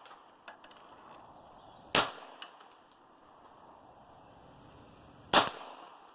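Two single shots from a MechTech CCU pistol-calibre carbine firing .40 S&W, one about two seconds in and one near the end, each a sharp crack with a short echoing tail.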